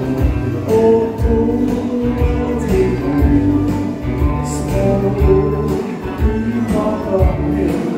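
Live dance-band music: electric guitar and keyboards over a steady beat and bass line.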